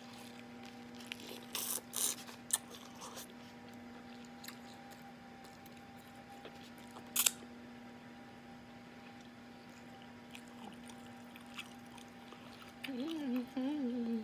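Wet mouth noises of someone eating fufu and egusi soup: scattered lip smacks and chewing clicks, with one sharp click about seven seconds in, over a steady low hum. Near the end a voice hums briefly.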